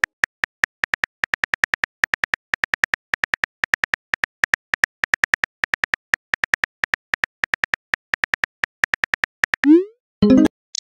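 Phone keyboard click sound effects from a texting-story app: rapid, irregular key taps as a message is typed. Near the end, a rising whoosh and a short burst of sound as the message is sent.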